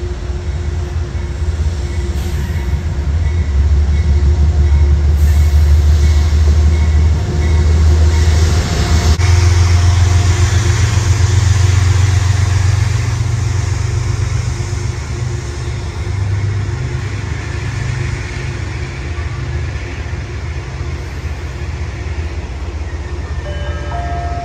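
A train passing close by: a heavy low rumble that builds, peaks for several seconds and then eases off, with steady tones riding above it.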